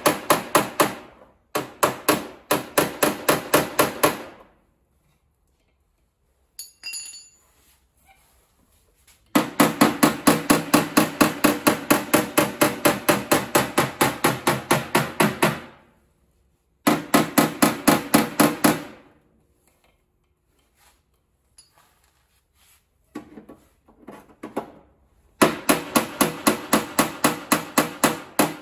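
Body hammer striking the steel rear fender lip of a Mazda RX-7 FC in quick runs of several blows a second, the sheet metal ringing at each strike, with pauses between the runs. The blows are working a rolled-under fender lip back out to its original shape.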